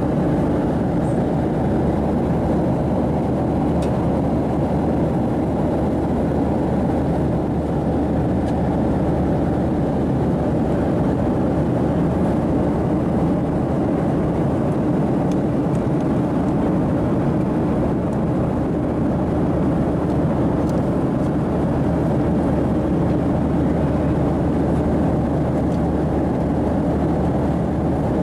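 Steady cabin noise inside a Boeing 737-700 in flight: an even, unchanging drone of engines and airflow, strongest in the low range.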